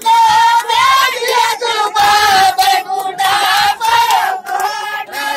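A group of women singing a folk song together in high voices, holding long, wavering notes.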